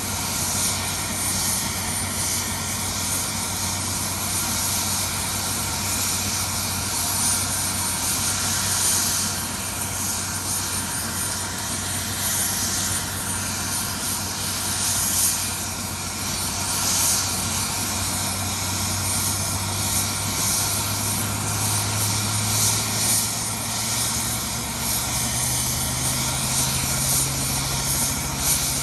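Helicopter running with a steady drone. Its low hum steps up slightly in pitch twice in the last third.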